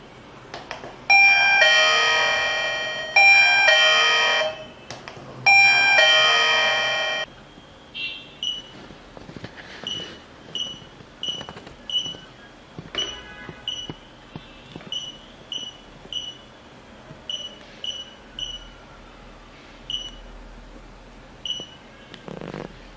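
Electronic doorbell chime of a home alarm panel playing a ringing ding-dong melody in three loud phrases, followed by a run of short, high beeps at irregular intervals, typical of the panel's touch-screen key tones.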